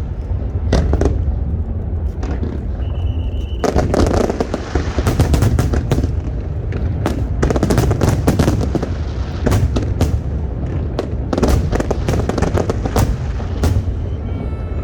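Aerial fireworks display: a rapid series of sharp bangs over a continuous low rumble, turning into dense crackling from about four seconds in. A brief high whistle sounds about three seconds in.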